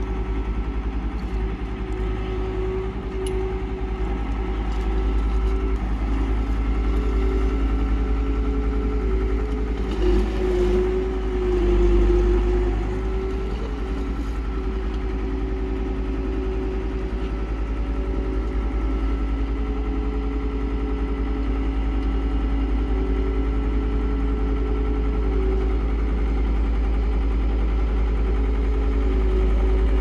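Skid steer loader engine running steadily under load while it handles a culvert heavier than its rated capacity. About ten to thirteen seconds in, its pitch dips and comes back up and the sound briefly gets louder.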